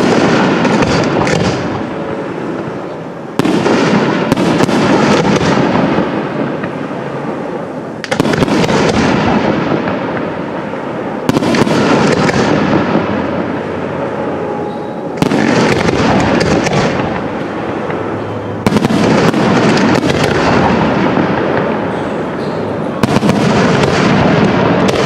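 Aerial fireworks display: seven shells burst three to five seconds apart. Each bursts with a sudden bang, followed by a long, dense crackle that fades away before the next.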